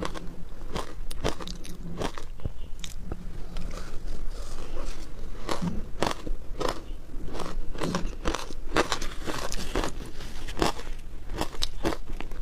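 Shaved ice dusted with matcha powder being bitten and crunched in the mouth, close to a clip-on microphone: a run of sharp, irregular crunches, one or two a second, some bunched closer together.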